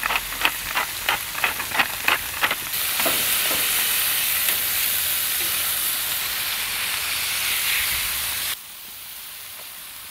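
Beef patties sizzling on a hot cast-iron griddle. A run of quick clicks, about four a second, comes over the sizzle in the first two and a half seconds. The sizzle then turns louder and hissier, and drops off suddenly to a quieter hiss near the end.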